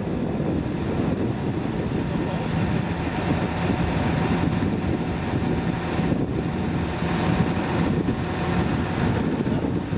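Engine of a truck-mounted crane running steadily, with wind rumbling on the microphone.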